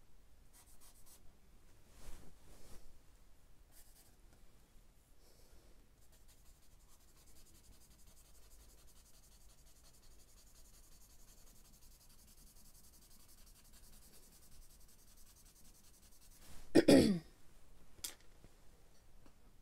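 Charcoal scratching and rubbing faintly on sketchbook paper, with one short cough about three-quarters of the way through, the loudest sound here.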